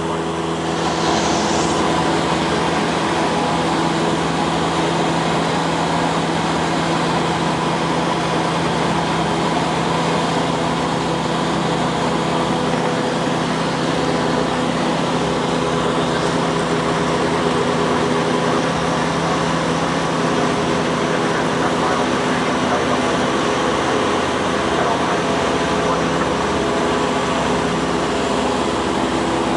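Cessna light aircraft's piston engine and propeller running at a steady speed, heard from inside the cabin as a loud, even drone that gets slightly louder about a second and a half in.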